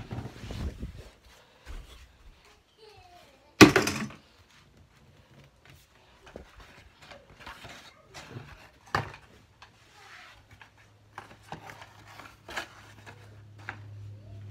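Knocks, clicks and rustles of things being moved about while tidying a room, with one loud thump about three and a half seconds in. A low steady hum comes in about halfway through.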